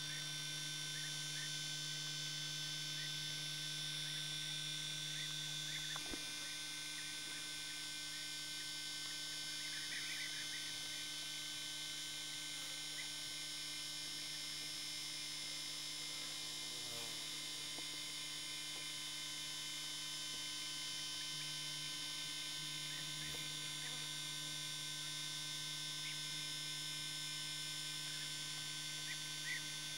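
Steady electrical hum made of several constant tones, the self-noise of the recording, with a few faint brief chirps here and there.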